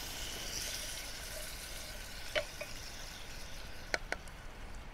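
Coconut milk being poured into hot spiced oil in a Trangia pan, sizzling steadily. A spoon knocks against the metal mug once about halfway and twice in quick succession near the end.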